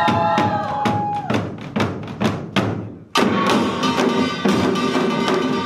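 Samulnori percussion ensemble playing a Yeongnam rhythm. Spaced drum strokes grow quieter, then about three seconds in the full ensemble comes back in loud and dense, with metal gongs ringing over the drumming.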